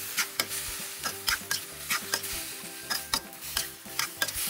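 Metal spatula scraping and clanking against a stainless steel wok in irregular strokes, a few a second, as kailan and crispy fried chicken are stir-fried over a steady sizzle.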